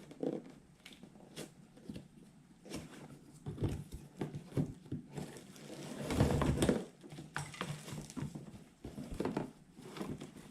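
Irregular rustling and small knocks of things being handled, with a louder, longer rustle about six seconds in.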